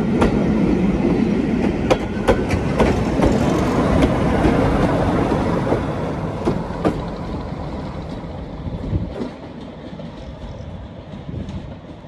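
Diesel-hauled train passing, its wheels clicking sharply over rail joints, then fading steadily as it draws away.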